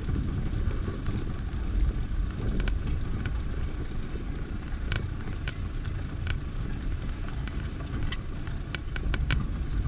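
Road noise of a vehicle driving over a rough, bumpy dirt road, heard from inside: a steady low rumble with scattered clicks and scratches from the handheld recording device.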